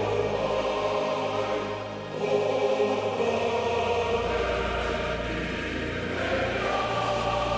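Choral music: voices holding long chords that change every two seconds or so.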